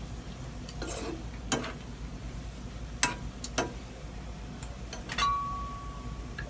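A spatula stirring food in a frying pan: about five separate knocks and scrapes against the pan. Near the end one knock leaves a short steady ringing tone.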